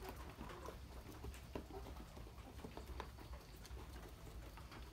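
A flock of chickens pecking and scratching at a feed trough and wet concrete: scattered light taps and clicks over a steady low rumble.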